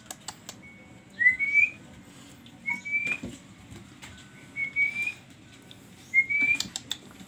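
A person whistling four short, high notes, each sliding slightly upward and then held briefly, a second or two apart, calling the puppies over.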